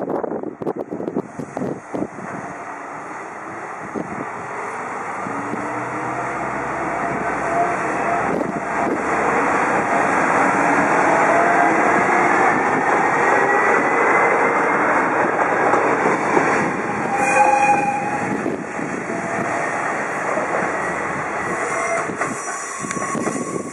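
A Hitachinaka Seaside Railway diesel railcar passing close by along the platform. The engine and the rumble of the wheels on the rails swell to a peak about halfway through, with a faint rising whine, and a brief higher tone sounds about seventeen seconds in.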